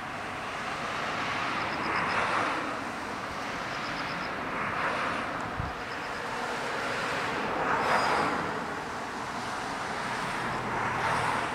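Outdoor traffic noise, passing vehicles swelling and fading about every three seconds. Faint short runs of high chirps recur every couple of seconds.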